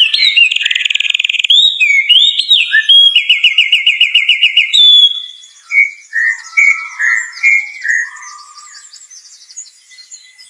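A songbird singing a long, varied song of rapid trills and whistled slurs, loud for the first half. From about five seconds in it turns to softer, lower warbled phrases.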